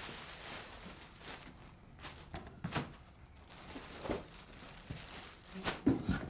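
Thin clear plastic sleeve crinkling as it is pulled off a parasol and gathered up by hand, with scattered soft handling knocks, the loudest few near the end.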